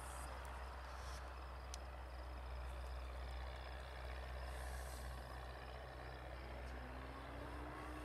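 Steady outdoor background noise: a low rumble and hiss, with a faint rising tone near the end.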